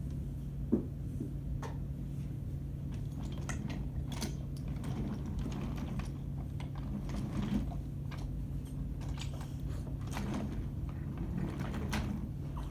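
Brio wooden toy trains and track pieces being handled, with scattered light clicks and knocks, one sharper knock about a second in. A steady low hum runs underneath.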